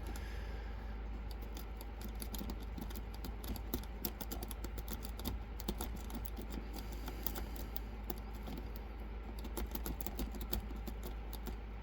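Rake pick working in and out of a Hyper Tough padlock's keyway: rapid, irregular light clicks and scratches as the pins are raked, the shackle still locked.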